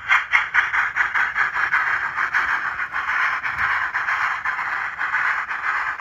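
Sound decoder in an HO scale NSWGR 38 class model steam locomotive playing rapid, hissy exhaust chuffs, about six a second, through the model's small speaker with almost no bass.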